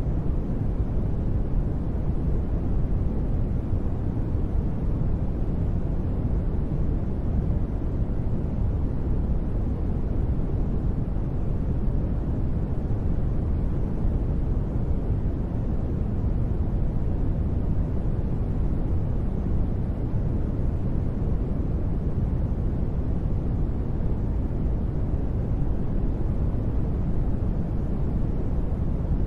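Steady white noise sleep sound, deep and rumbling, with most of its weight in the low end and little hiss on top. It stays even throughout, without changes or breaks.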